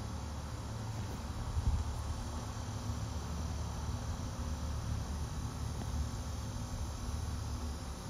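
Steady outdoor ambience: crickets chirping continuously under a steady low rumble.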